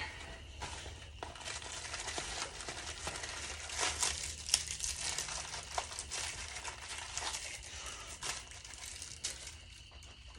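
Crinkling and rustling as fire starters are handled and put into a charcoal grill, with scattered light clicks and knocks; the sharpest click comes about four and a half seconds in.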